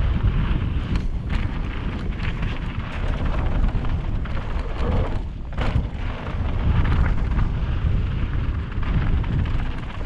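Mountain bike riding fast down a dirt flow trail: wind rushes over the microphone in a heavy, continuous rumble, with tyre noise and short knocks and rattles as the bike goes over bumps.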